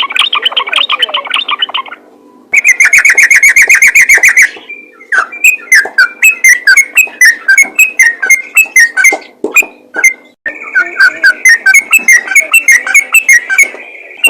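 Yellow-vented bulbul singing a fast, chattering run of repeated whistled notes. It comes in several bouts of a few notes a second, with short breaks about two seconds in and again around ten seconds.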